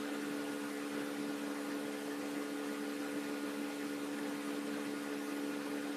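Steady background hum and hiss with no events: the recording's room noise while nobody speaks, a low steady drone with a faint hiss over it.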